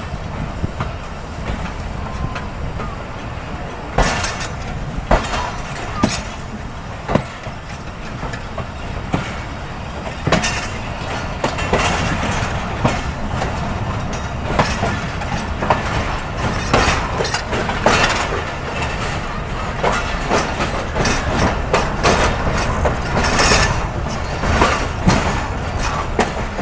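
Passenger train's wheels running on the track: a steady low rumble with irregular sharp clacks as the wheels cross rail joints and crossings. The clacks come more often from about ten seconds in.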